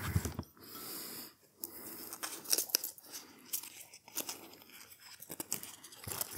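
Paper muffin case being peeled off a muffin by hand: quiet, irregular crinkling and tearing with small crackles.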